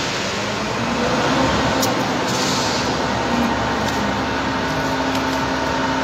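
Machinery running steadily, a constant mechanical drone with a faint steady hum, and a few light clicks about two seconds in.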